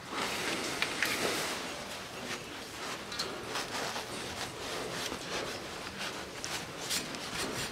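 A cloth rag rubbed and wiped over a manual gearbox's metal casing around the filler plug: an uneven rustling with small scrapes and clicks.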